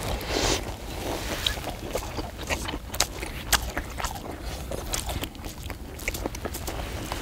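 People eating fish cake skewer soup: biting and chewing the fish cake and sipping hot broth from small bowls, with many short clicks of skewers and bowls. A low rumble of wind on the microphone underneath.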